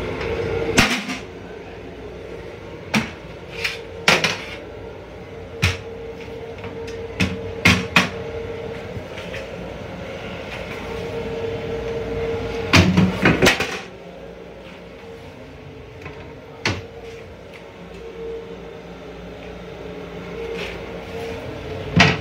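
Plastic toilet seat and lid, detached from their hinges, knocking and clattering as they are handled, a dozen or so sharp knocks with a cluster about halfway through. Under them runs the steady hum of the railcar.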